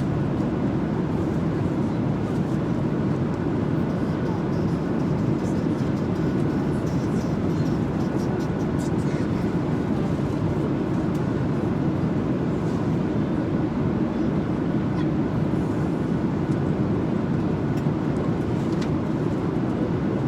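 Steady engine and air noise inside an airliner's cabin, a constant low rush with a few faint clicks on top.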